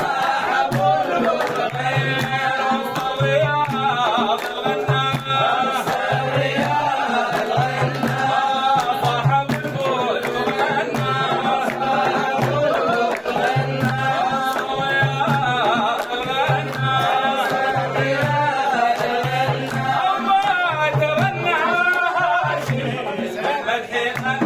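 Voice singing a Sudanese Sufi devotional song (madih) over a steady, evenly spaced low hand-drum beat.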